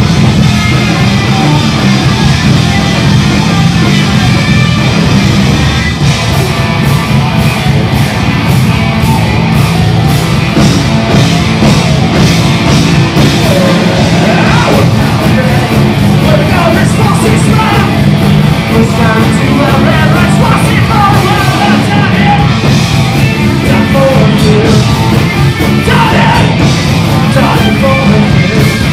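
Live rock band playing loud: electric guitar, bass guitar and drums with a steady beat, and a singer coming in about halfway through.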